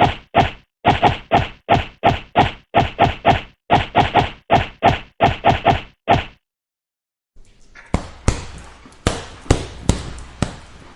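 A rapid flurry of punch sound effects, about three hits a second, some in quick pairs and triples, that stops about six seconds in. After a second of silence, a second punch track begins: a hissing, noisy bed with sharp impacts about every half second.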